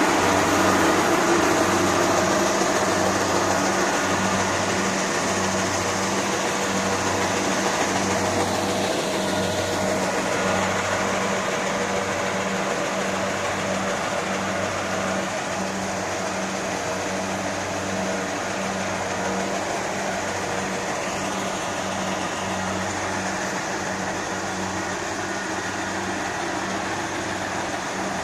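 Rice harvesting machine running steadily, with a low throb that pulses a little under once a second. It grows slightly quieter over the stretch.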